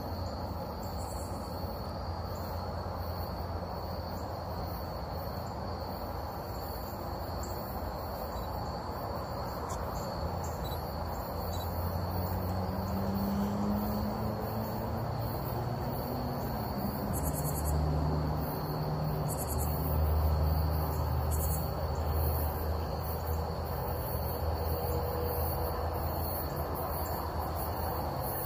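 Crickets chirring in a steady, continuous high trill. From about ten seconds in, a low distant engine rumble swells underneath, loudest about two-thirds of the way through.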